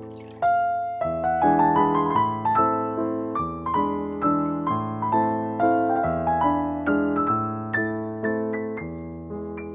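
Background piano music: a gentle melody of single struck notes, a few a second, each ringing and fading.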